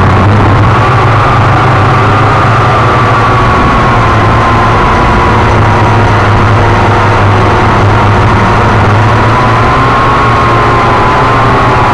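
Syma X8C quadcopter's four brushed motors and propellers whirring steadily in flight, heard loud and close from the craft's own camera. The whine dips slowly in pitch, then rises again near the end as the throttle changes.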